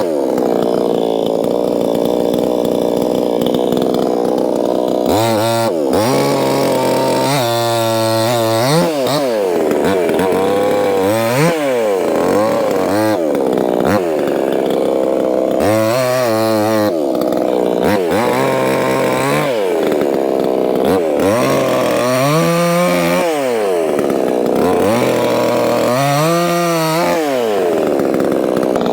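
Proyama 68cc two-stroke chainsaw running at high revs while cutting soft poplar. After about five seconds of steady running, its pitch repeatedly dips and climbs back, about eight times, as the engine loads and recovers.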